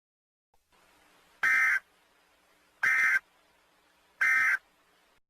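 Emergency Alert System end-of-message data tones: three short, harsh electronic bursts about a second and a half apart, each lasting a fraction of a second, signalling the end of the alert test.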